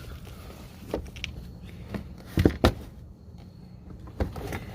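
A few sharp knocks and taps from an engine splash guard being pushed up into place under a car, the loudest a close pair about two and a half seconds in.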